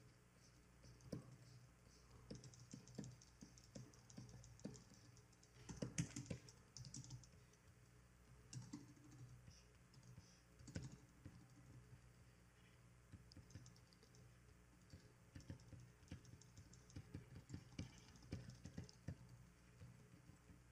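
Faint, irregular taps of computer keyboard keys, a few at a time, with the busiest and loudest cluster about six seconds in and a faint scratching at times.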